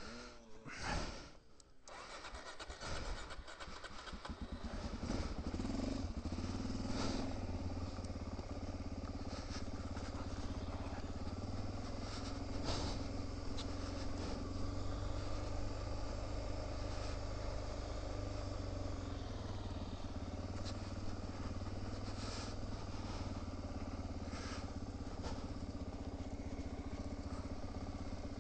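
Trail motorcycle engine starting up in the first couple of seconds, then rising in pitch and loudness as the bike pulls away, and running steadily under way for the rest of the time.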